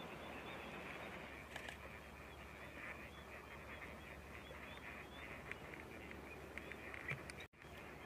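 A large flock of wild ducks calling on the water: many short, high calls overlapping continuously over a steady low background hum. The sound cuts out for an instant near the end.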